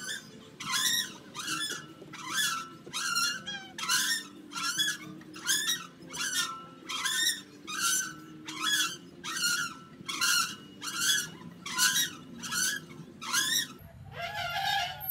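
Playground swing squeaking in a steady rhythm as it goes back and forth, about one short rising squeak every 0.8 seconds. Near the end the squeaks turn lower in pitch.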